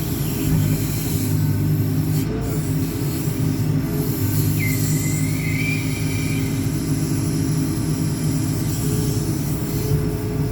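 JCB 4CX backhoe loader's diesel engine running steadily while the rear backhoe boom works, with a brief high squeal about halfway through.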